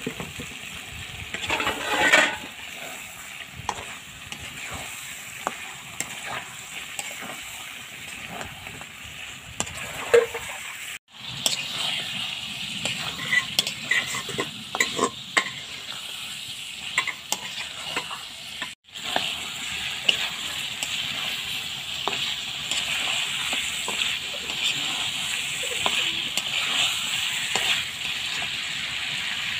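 Chicken pieces sizzling in oil and masala in a cast-iron pan while a metal spatula stirs them, scraping and clicking against the pan. The sound cuts out briefly twice, around 11 and 19 seconds in, and the sizzle is steadier and stronger after the second break.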